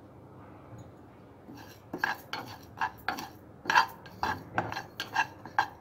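A spatula scraping and stirring cumin, coriander and sesame seeds as they dry-roast in a nonstick pan, the seeds rattling against the pan. About a dozen quick, irregular strokes, starting a second and a half in.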